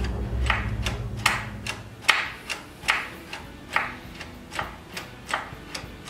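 Choke lever and plate of an aftermarket carburetor on a Tecumseh HH-series engine flicked back and forth by hand, clicking sharply about two to three times a second. The choke is hanging up, which the mechanic suspects is the aftermarket choke plate catching on the carburetor body.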